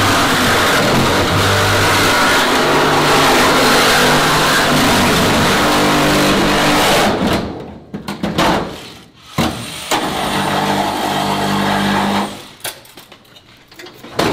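DeWalt FlexVolt 60V cordless reciprocating saw with a 9-inch, 10 TPI Lenox Gold Power Arc bimetal blade cutting through a car's sheet-metal floor, the motor running hard under load. The saw stops about seven seconds in, then runs again in short bursts and a longer run, and falls silent a couple of seconds before the end as the cut goes through and the car separates.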